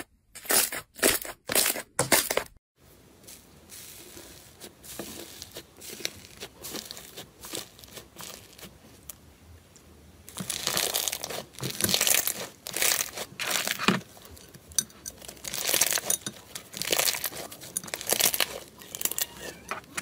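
Slime squeezed and kneaded by hand: first quick, regular squishing crunches, about two a second, then after a brief gap a white fluffy slime stretched and torn with a crisp crinkling crackle that grows louder from about halfway.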